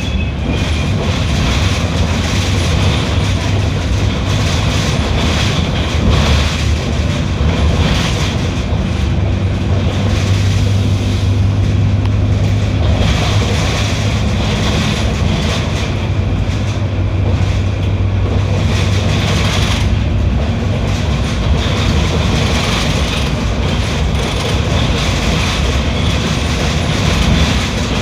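Mercedes-Benz OF 1721L BlueTec 6 bus engine running at a steady low note while the bus is under way, over continuous road noise and rattling.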